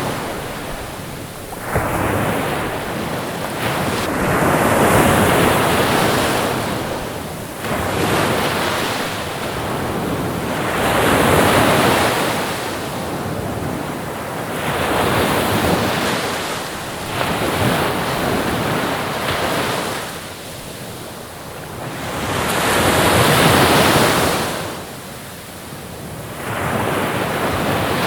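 Ocean waves washing in and receding, in repeated surges that swell and fade every several seconds.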